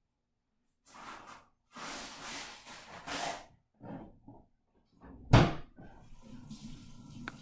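Background room noises: a few seconds of rustling and shuffling, then one loud thump a little over five seconds in, followed by a low steady hum.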